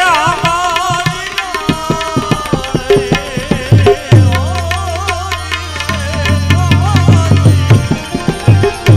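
Gujarati bhajan music without singing: tabla playing a steady pattern, with deep bass strokes that bend down in pitch from about four seconds in, under a wavering melody line.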